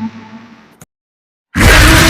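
Guitar music fading out, a single click, a short stretch of dead silence, then a loud, noisy sound with a steady low hum cutting in abruptly about a second and a half in.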